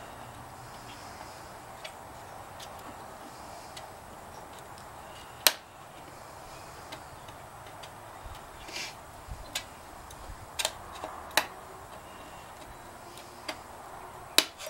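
Small screwdriver clicking against the metal rim of a VW Beetle speedometer as its lip is pried up, with scattered sharp clicks, the loudest about five seconds in and a cluster near the end.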